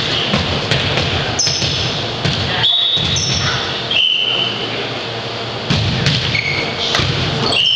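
Indoor volleyball play in an echoing gym: sharp knocks of the ball being struck and bouncing, several short high squeaks, and a steady din of the hall.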